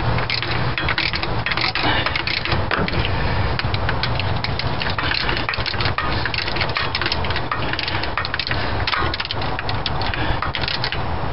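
Socket ratchet clicking in quick runs as the fuel pump's mounting bolts are run down and snugged, over a steady low hum.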